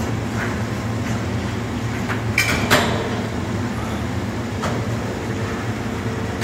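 Motor-driven rotator slowly turning a welded structural-steel elevator hoistway frame: a steady low mechanical hum, with two sharp metal knocks about two and a half seconds in and a fainter one later.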